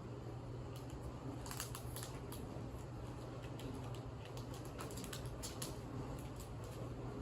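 Light, irregular clicks and taps from a dog moving about in a plastic playpen, its claws knocking against the panels and floor, over a low steady hum.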